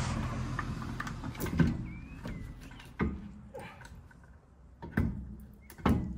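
Sharp knocks and clicks, four louder ones a second or two apart, from hand-fitting wheel bolts as a red rim goes onto a VW Golf Mk4's rear hub. A rushing background noise fades out over the first two seconds.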